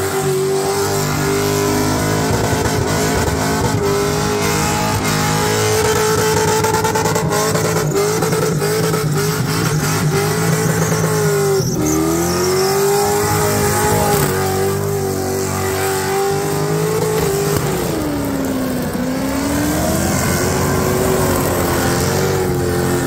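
A car engine held at a steady high rev during a burnout, with tyre noise underneath; the revs sag and climb back twice, once near the middle and again later on.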